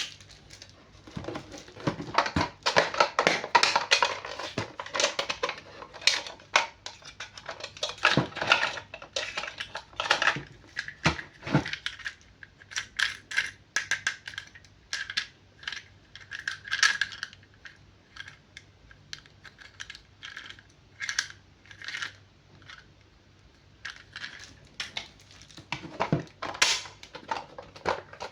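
Plastic toy packaging and toy parts being handled and opened: a dense, irregular run of clicks, crinkles and small clattering knocks.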